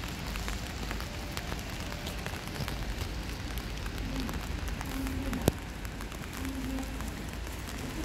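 Station platform background noise: a steady crackly hiss, with a few short low hums and one sharp click about five and a half seconds in.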